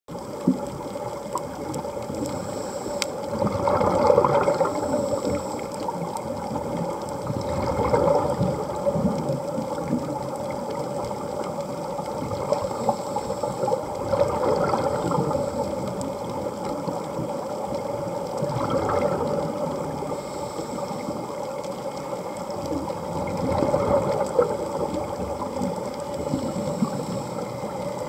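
Underwater air bubbles gurgling, swelling up every four to five seconds over a steady hum.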